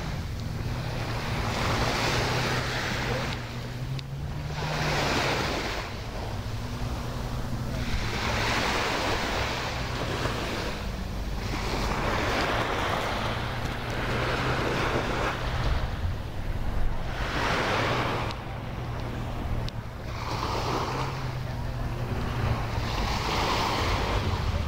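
Small waves breaking and washing up a sandy beach, the surf swelling and fading every two to three seconds. A steady low hum runs underneath.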